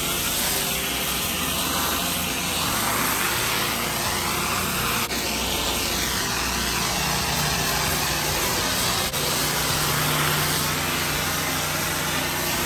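Pressure washer running steadily, its engine under the continuous hiss of high-pressure water spraying on grease-stained concrete, with two brief dips in level.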